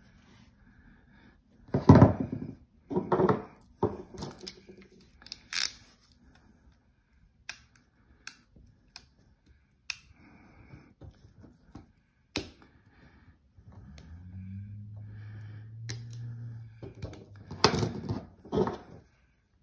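Pliers and a utility knife working at the metal tabs on two battery cells: irregular clicks, scrapes and knocks of metal on metal and on the wooden table, the loudest about two seconds in and again near the end. A low hum runs for a few seconds before the last knocks.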